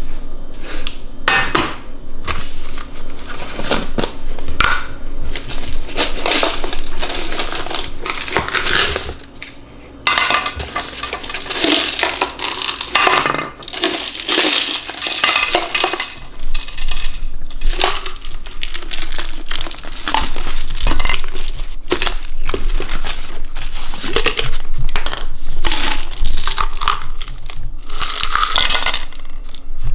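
Kitchen handling noises: pots and utensils clattering, mixed with crinkling and crushing sounds, in irregular bursts.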